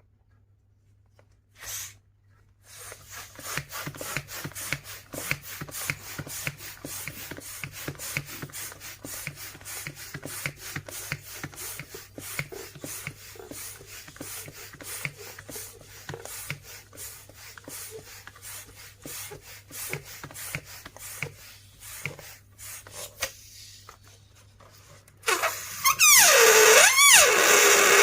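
Rubber balloons handled with a long run of quick small clicks and rubbing. Near the end comes a loud hissing rush of air with a wavering squeal that slides up and down, as a balloon lets its air out through the neck.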